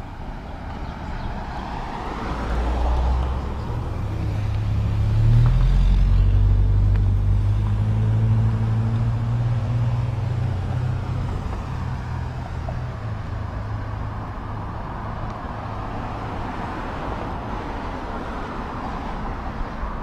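Road traffic passing close by: a car's rush swells about two seconds in, then a heavy vehicle's low engine hum grows loudest about five to nine seconds in and fades, and another car's rush builds near the end.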